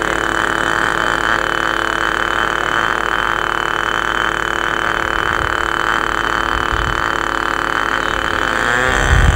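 Radio-control model airplane's small engine running steadily in flight, an even, high-pitched drone.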